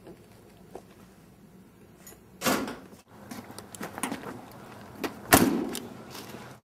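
A door being handled: a loud rattling burst about two and a half seconds in, scattered knocks, then a sharp bang a little past five seconds, the loudest sound, dying away over about half a second.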